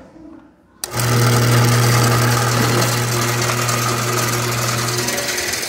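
Overhead Door R80-z commercial garage door opener starting with a click about a second in, then running: a loud, steady motor hum with the rattle of its V-belt and roller-chain drive. The hum drops out near the end while the chain clatter keeps going.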